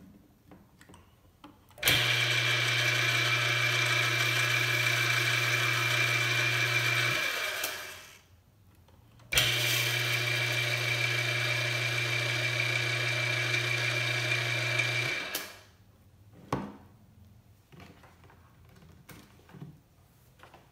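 Electric motor from a Dickerson printing press, started twice with its reversing switch, once forward and once in reverse. Each time it comes up to speed at once and runs steadily with a hum and whir for about five to six seconds. The hum then cuts off and the motor winds down over about a second. A single switch click follows near the end.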